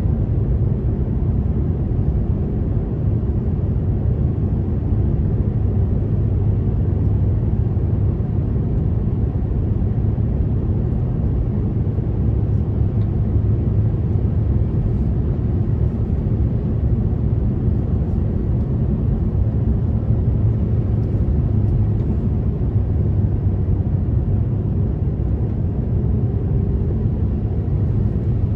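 Steady low rumble inside the cabin of an Airbus A350-900 descending on approach: engine and airflow noise heard through the fuselage, from a seat over the wing.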